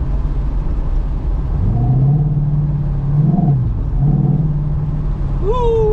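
Ford Mustang GT 5.0 V8 running through Borla Pro XS mufflers, heard from inside the car while driving. A low exhaust rumble climbs in pitch about two seconds in, peaks and drops briefly near the middle, then holds steady. A short high voice-like cry is heard near the end.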